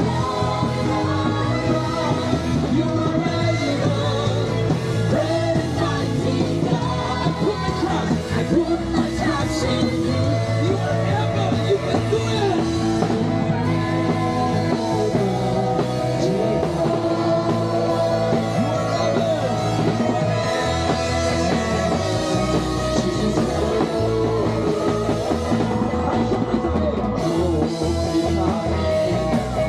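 Live band playing a rock-style worship song: women singing lead over electric guitars, bass guitar, keyboard and drums.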